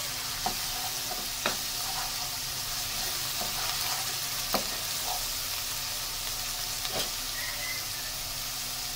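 Onion, green chili and mustard paste sizzling steadily in hot oil in a nonstick frying pan, stirred with a wooden spatula, with a few sharp clicks along the way.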